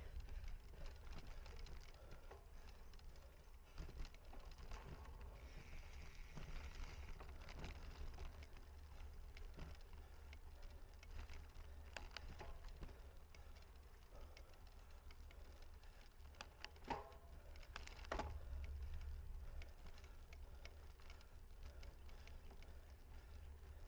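A cyclocross bicycle riding over the course, heard as a low wind rumble on the microphone with scattered clicks and rattles. There is a brief hiss about six seconds in, and two short, louder sounds near seventeen and eighteen seconds.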